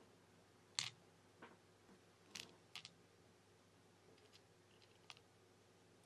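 Faint handling noise: a few light clicks and taps as a plastic shield card and tweezers are moved about a phone circuit-board holder. The sharpest click comes just under a second in.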